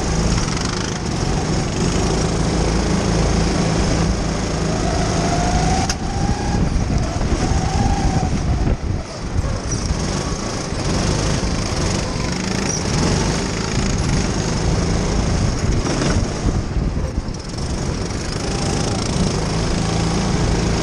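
Kart engine heard onboard, running hard at racing speed with a steady buzzing note. The note drops briefly twice, about nine and seventeen seconds in, and a brief rising whine comes in around six to eight seconds.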